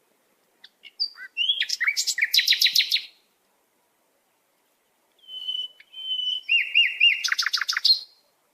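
A songbird singing two phrases with a pause of about two seconds between them. The first opens with a few scattered high notes, the second with a held whistle and slurred notes, and each ends in a fast run of sharp, sweeping notes.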